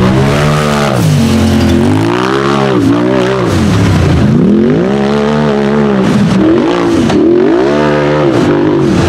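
Rock bouncer's engine revving hard under load on a steep hill climb, its pitch surging up and dropping back about five times as the throttle is worked.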